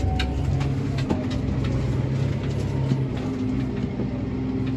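Tractor engine running at a steady speed, with a few light clicks and rattles.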